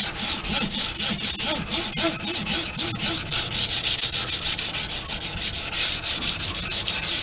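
A steel knife blade being stroked back and forth on sandpaper on a Washboard freehand sharpening board, with rapid, even rasping strokes. The strokes are grinding the blade to restore its edge.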